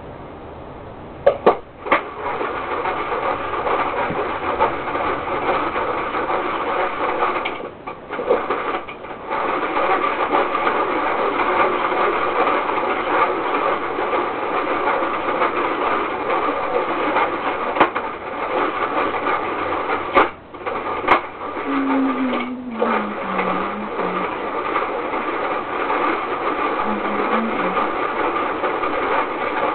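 Toy ice cream maker churning its mix with a steady mechanical whir. It starts up after a couple of sharp knocks and stops briefly two or three times along the way.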